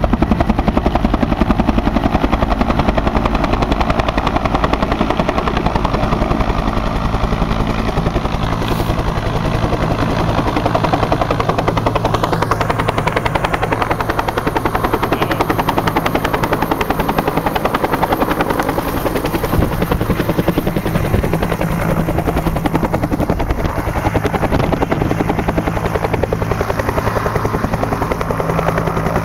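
Bell UH-1 Huey helicopter's two-blade main rotor beating fast and steadily, with its turbine engine running, as it flies in, hovers low and sets down.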